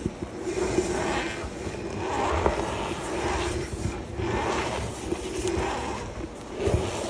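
Hands squeezing and pressing loose cornstarch, its packed powder crunching and squeaking in soft swells about once a second, five or six times.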